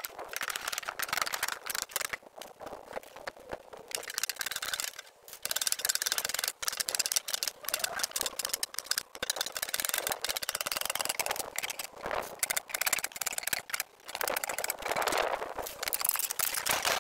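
Dense, uneven run of knocks and rattles: a hammer and hoop driver working the steel hoops off an oak wine barrel, with loose staves clattering.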